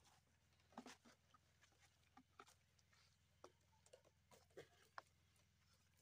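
Near silence with a few faint, scattered clicks and rustles of thin drip-irrigation tubing and plastic fittings being handled at a thick black polyethylene water pipe; the sharpest click comes about five seconds in.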